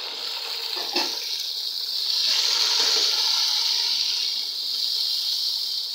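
Chopped tomatoes and green chillies sizzling loudly in hot oil with fried onions as they are stirred with a spoon; the wet tomatoes hitting the hot oil give a strong, steady hiss that swells a couple of seconds in. A single tap about a second in.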